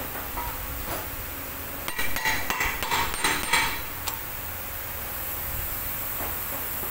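Hammer taps and metallic clinks on the wheel hub nut at the centre of a new brake rotor, in several quick clusters over the first four seconds.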